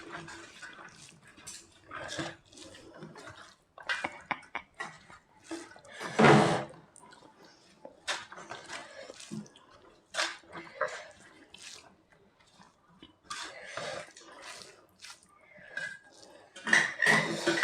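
Wet eating sounds of egg curry and dal being eaten: mouthfuls, chewing and small clicks and clinks of dishes, in short bursts. One louder burst comes about six seconds in.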